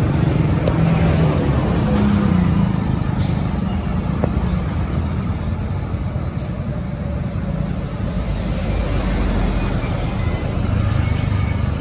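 Road traffic: bus, truck and motorcycle engines running and passing close, a steady low rumble.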